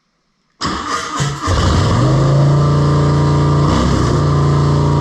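Harley-Davidson Softail V-twin turned over by the electric starter, catching about a second and a half in and settling into a steady idle that is awfully high, just after a Screamin Eagle air intake was fitted; the owner suspects the tuner needs adjusting.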